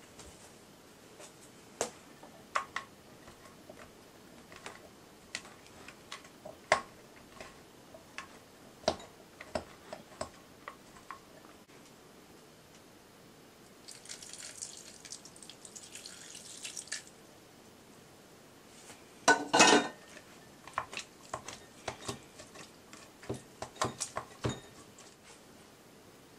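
A plastic card scraper chopping cold butter cubes in a glass bowl: a run of light, irregular ticks and taps of the scraper against the glass. About 14 s in, chilled water is poured in for a few seconds, a short, louder burst of noise follows around 19 s, then the tapping goes on.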